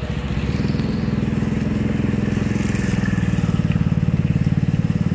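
A small engine running with a fast, even low pulse, growing louder about half a second in and loudest near the end. Under it, a heavy knife crunches through a yellowfin tuna's head.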